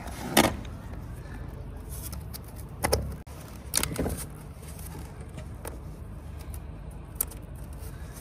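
A few sharp plastic clicks and knocks as boiler flue pipe sections and a flexible corrugated flue hose are handled and fitted together, over a steady low rumble.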